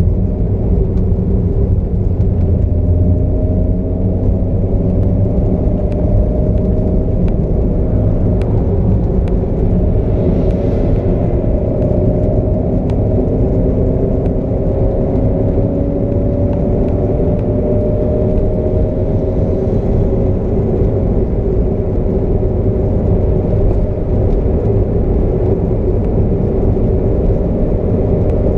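Interior sound of a 1997 Alfa Romeo GTV Twin Spark cruising at a steady speed. Its four-cylinder engine drones over a low road and tyre rumble, the pitch drifting slowly up and down.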